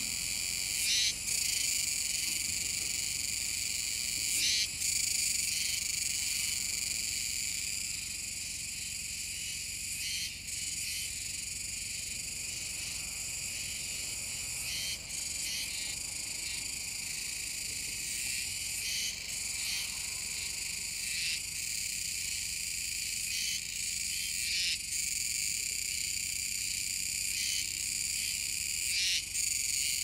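Chorus of Kuroiwa tsukutsuku cicadas (Meimuna kuroiwae) calling together: a dense, steady high-pitched buzz, with a brief flicker in it every few seconds.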